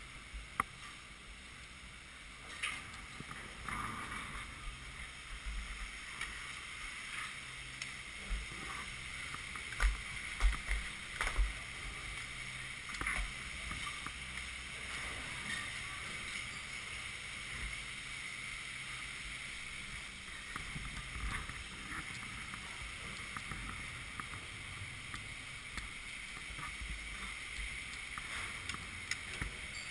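Chairlift station machinery running steadily, heard from the loading area and then from a chair leaving the station, with a few loud knocks about ten to eleven and a half seconds in.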